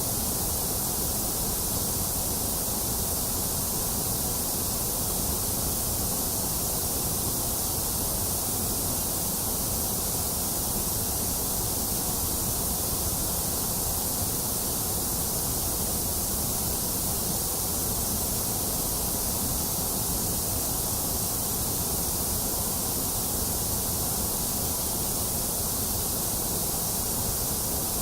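Continuous white noise, a steady hiss with no change in level or character. The top end is bright and the bottom has a low rumble, with a thinner middle.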